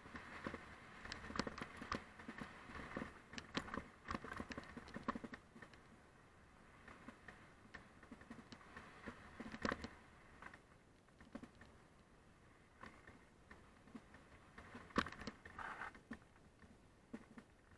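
Mountain bike rattling as it rides downhill over a slatted boardwalk and then a gravel trail: irregular clicks and knocks from the bike and its camera mount, with tyres crunching on gravel. The rattles come in dense clusters near the start and again about fifteen seconds in.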